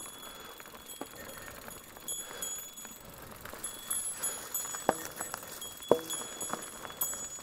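GT Zaskar carbon hardtail mountain bike clattering over a trail: a run of small knocks and rattles, with two sharper knocks about a second apart past the middle and a high-pitched buzz that comes and goes.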